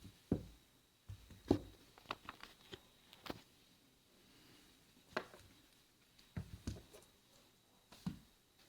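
Scattered small plastic clicks and knocks of a Samsung Galaxy S3 being handled as its back cover is unclipped and its battery taken out.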